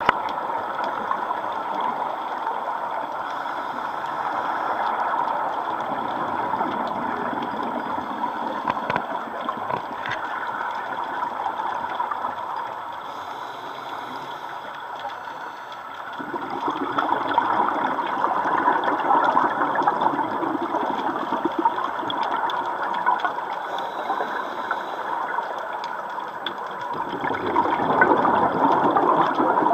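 Underwater water noise: a steady crackling, rushing wash. It swells louder about halfway through and again near the end, as breaking surf churns overhead.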